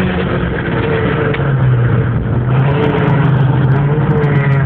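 Car engine and road noise heard from inside a moving car: a steady engine drone that grows stronger about one and a half seconds in and then holds.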